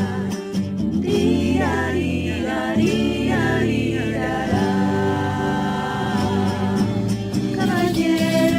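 A group of voices singing a cueca together in harmony, holding long notes with some gliding pitch changes.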